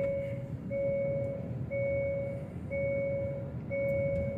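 An electronic warning beep repeating about once a second, each tone held for almost a second with a short gap between. Under it is the steady rumble of a car driving on the highway, heard from inside the cabin.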